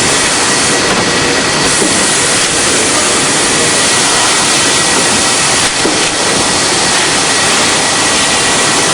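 A vacuum cleaner rotor sleeve machine running with a loud, steady mechanical rush and a thin steady high whine. There is a brief dip about six seconds in.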